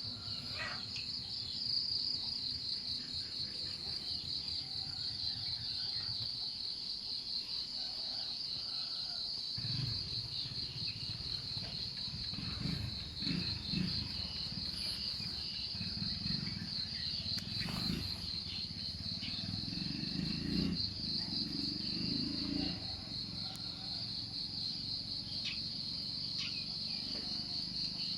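Insect chorus: a steady, high, rapidly pulsing trill with no let-up. A low rumble comes and goes underneath from about ten seconds in.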